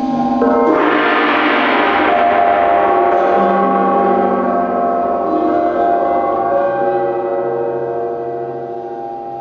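A large hanging gong struck about half a second in, ringing with many overtones that hold for several seconds and then slowly fade, over steady ringing tones from singing bowls.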